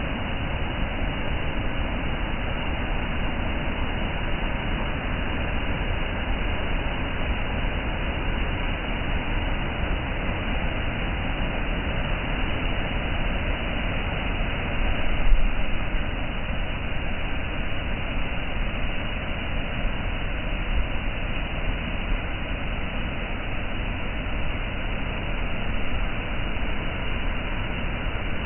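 Waterfall: the steady rushing of falling water, dense and unbroken, with a brief louder bump about halfway through.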